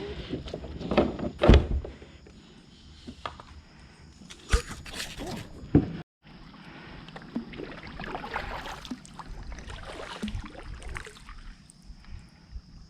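Kayak paddling: paddle strokes in the water with several sharp knocks in the first half. The sound cuts out briefly about six seconds in.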